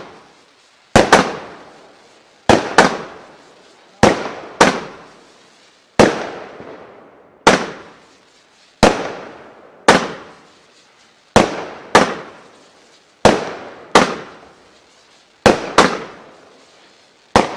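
Weco Stormy Flash 30 mm consumer firework battery firing shot after shot: a string of sharp bangs from launches and bursts, about one a second and sometimes two in quick succession, each dying away in a short tail of echo.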